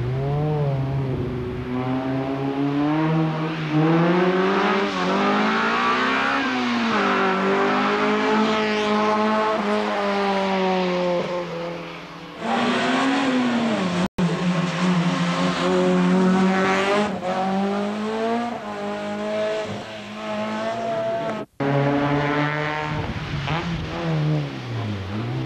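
Hillclimb race cars passing one after another, their engines revving up and dropping back again and again through gear changes and corners. The sound breaks off briefly twice, about two-thirds of the way through and again near the end.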